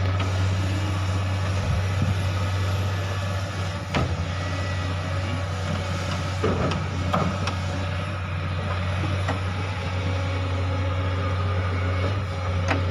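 Steady low hum of machinery running nearby, with a few sharp knocks as the battery compartment cover is closed: one about four seconds in, two more around six and seven seconds, and one near the end.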